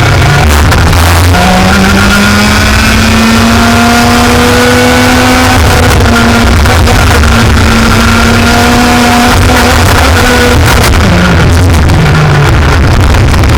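Racing kart engine running hard and loud, its pitch climbing slowly for about nine seconds, dropping sharply near the end, then rising again.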